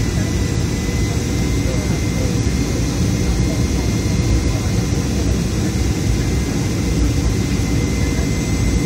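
Steady jet-engine and airflow noise inside the passenger cabin of a Boeing 737 on approach to land, a deep, even roar with a faint steady whine above it.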